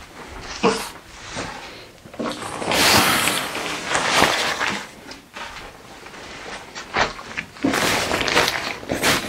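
Fabric of a Snugpak Special Forces bivvy bag rustling in irregular swishes as it is smoothed and gathered by hand. It is loudest about three seconds in and again near the end.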